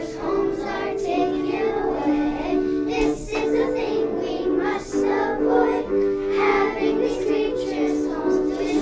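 Children singing a song with musical accompaniment of sustained, held chords.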